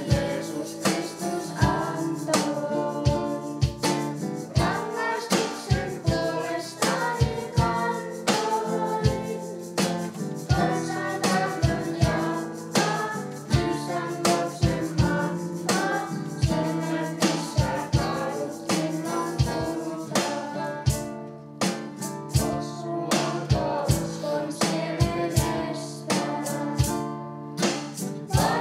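Children's choir singing a song, accompanied by acoustic guitar and an electronic drum kit keeping a steady beat.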